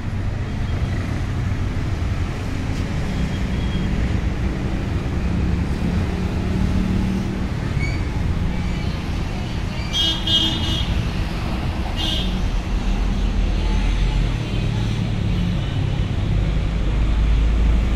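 Road traffic noise: a steady low rumble of passing vehicles, with two brief high toots about ten and twelve seconds in. A vehicle's rumble swells near the end.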